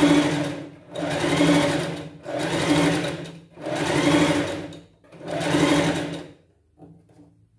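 Electric sewing machine stitching a rolled hem in short runs of about a second each, stopping briefly between them as the fabric is folded and fed, then falling silent a little after six seconds in.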